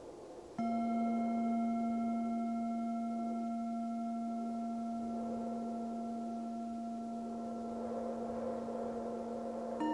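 A singing bowl struck about half a second in, ringing on with a steady low tone and several higher overtones over a soft bed of wind. A second bowl with a slightly higher, different pitch is struck near the end.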